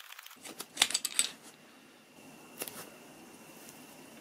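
The knurled end cap on an SMK QB78DL air rifle's tube being turned and unscrewed by hand: a cluster of small clicks and scrapes about a second in, then one more click a little later.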